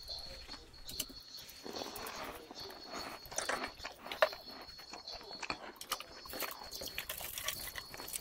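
A person eating noodle soup: chewing and slurping, with light clicks of chopsticks against a steel pot and a drinks can. One sharp knock comes about four seconds in.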